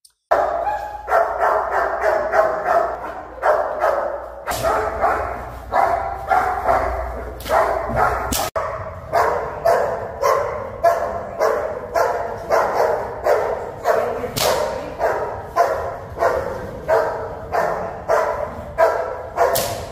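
German Shepherd protection dog on a leash barking steadily and rhythmically, about two barks a second.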